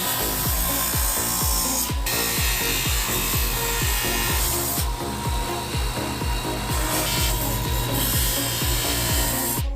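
Power grinding tool abrading a jade ring blank, a steady rasping hiss that cuts out abruptly a few times. Under it runs background music with a steady beat.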